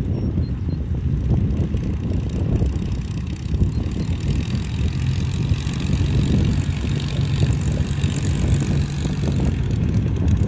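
Piston engine of a vintage propeller warbird running: a steady low drone, with a brighter, hissier edge coming in from about four seconds.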